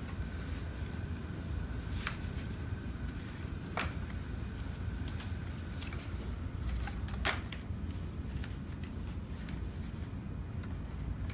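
A die-cut paperboard box blank is handled and folded on a table: papery rustling and scraping, with a few sharp snaps as tabs and creases are bent. Under it runs a steady low room hum.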